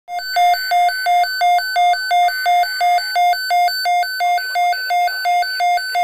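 Midland weather radio's alert alarm beeping, a rapid even train of about three high-pitched beeps a second, sounding because it has picked up a storm watch alert.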